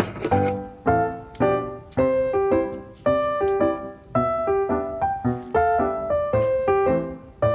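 Background piano music: a light melody of plucky notes and chords with a steady beat.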